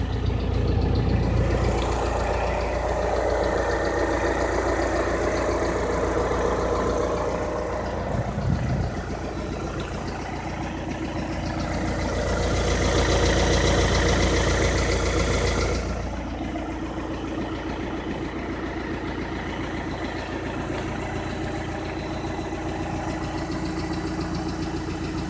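Volkswagen Passat TDI's 2.0-litre CKRA four-cylinder diesel idling with a light tick, which the owner takes for a faulty lifter. A louder whirring hiss, which the owner attributes to the AdBlue pump running its cycle, cuts off suddenly about two-thirds of the way through.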